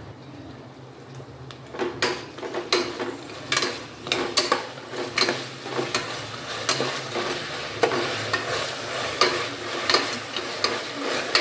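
Onions, green chillies, ginger-garlic paste and salt being stirred and scraped around a pan of hot oil while they fry and sizzle. A steady sizzle is joined about two seconds in by frequent, irregular scrapes and knocks of the stirring utensil against the pan.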